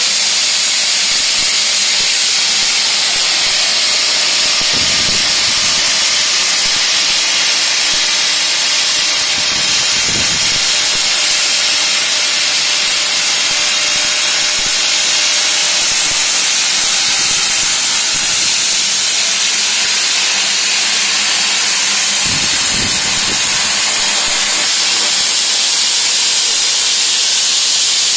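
CNC plasma cutting torch hissing steadily as its arc cuts through metal plate.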